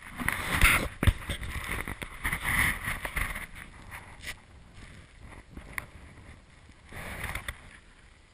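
Wind buffeting the camera microphone in gusts, loudest in the first three seconds and again briefly near the end, with two sharp knocks against the camera about a second in and footsteps crunching in snow.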